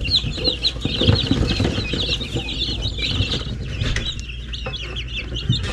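A brood of young chicks peeping nonstop, many short high chirps overlapping, with soft thumps and rustling in the straw below them.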